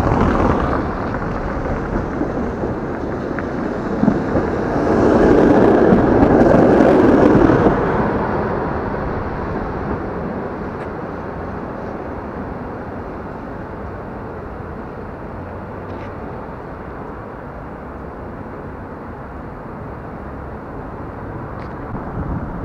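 Street traffic rumble over cobblestones, swelling louder for about three seconds around five seconds in, then settling to a steady hum.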